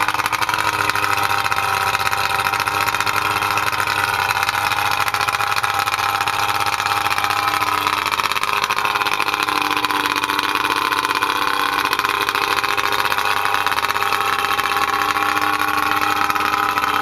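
Johnson 70 hp two-stroke outboard running steadily on a garden-hose flush attachment, out of the water. Its pitch sags a little around the middle and comes back up.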